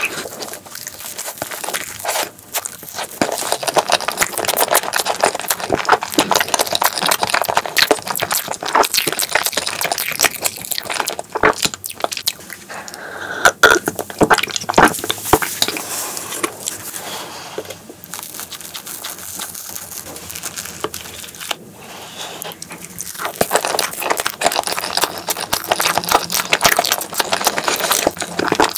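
Close-miked chewing and swallowing of soft chocolate crepe cake with cream: wet, sticky mouth sounds and lip smacks that go on without a break, with a short change in the sound near the middle.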